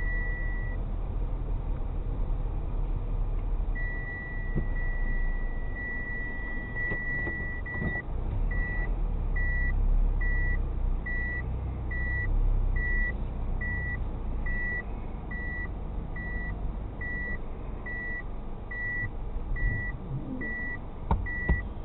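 A car's in-cabin reversing or parking-sensor warning: a steady high tone for several seconds, then switching to even beeps about three every two seconds, over low engine and road rumble as the car reverses in a car park. A few sharp clicks near the end.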